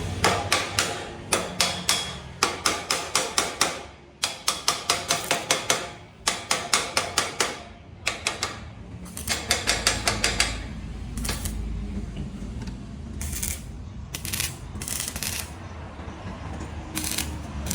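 Hand hammering in quick runs of about five blows a second, with short pauses between runs, then slower single blows over a low steady hum.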